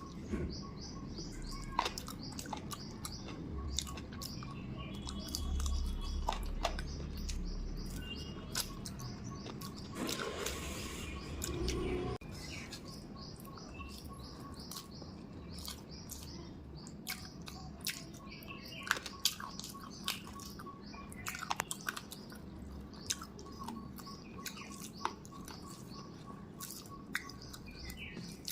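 Chewing of rice and chicken with many short, sharp mouth clicks, while birds chirp repeatedly in the background.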